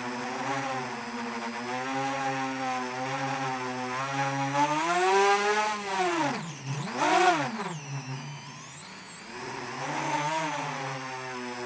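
7-inch FPV quadcopter's brushless motors whining, the pitch wavering with throttle. About five seconds in the whine climbs, then swoops down and sharply back up as the quad flips over, the loudest moment, before settling to a steadier whine.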